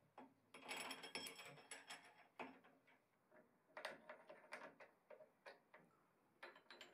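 Light metal clicks and knocks, in several short clusters, as a gear-cutter arbor is fitted into a milling machine's spindle and a spanner is handled.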